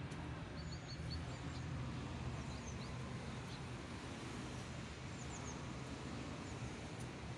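Small birds chirping now and then, short high chirps in little groups, over a steady low background hum.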